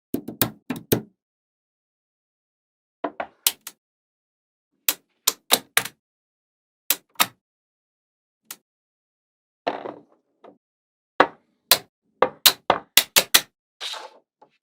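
Small magnetic balls clicking sharply against one another as they snap into place, in short clusters of quick clicks with dead silence between. A brief rattling slide comes near the end.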